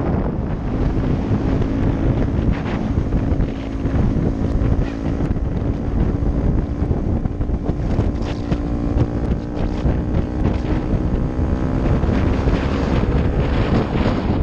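Heavy wind buffeting on a helmet-mounted camera's microphone over a 2015 Honda Grom's 125 cc single-cylinder engine with a Pro Circuit exhaust, running at a steady note while cruising.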